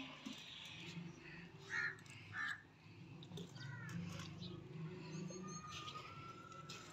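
Crows cawing faintly, with two short caws about two seconds in, and a few faint high bird chirps later.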